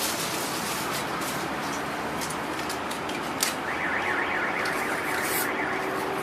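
A car alarm warbles for about two seconds past the middle, over a steady background hiss with scattered knocks from the phone being handled.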